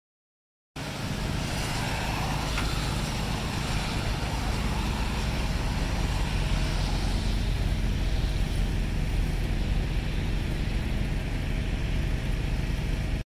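Steady road traffic noise with a low engine hum underneath, cutting in suddenly after a moment of silence.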